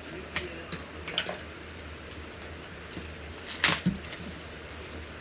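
Unboxing handling of packaging and books: a few soft rustles and clicks, with one sharper knock about three and a half seconds in, over a low steady hum.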